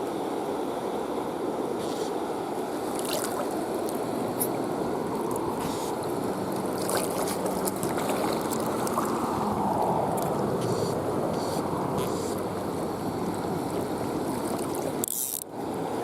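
Steady rushing of a flowing river, with a few light clicks scattered through it.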